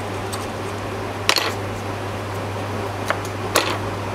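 Steady hum and fan noise of a repair workbench, with three short handling clicks and crinkles at the bench, the loudest about a second in and two more near the end.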